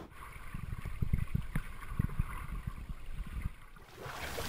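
Low, muffled thumping and rumbling, then about four seconds in a steady wash of splashing water from a swimmer doing laps in a pool.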